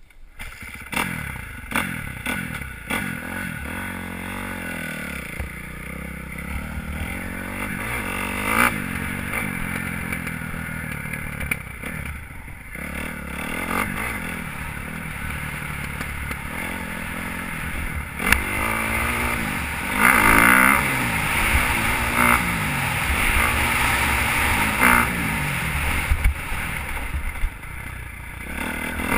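Motocross dirt bike engine revving up and falling back again and again as the bike accelerates along a rough dirt track, heard from the rider's helmet, with wind rushing over the microphone and knocks from the bumps.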